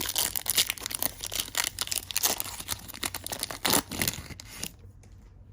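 A trading card pack's foil wrapper being torn open and crinkled, with many sharp crackles, stopping about four and a half seconds in.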